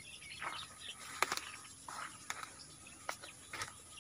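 Faint outdoor field ambience: scattered bird chirps over a steady, high-pitched insect drone, with a few sharp clicks.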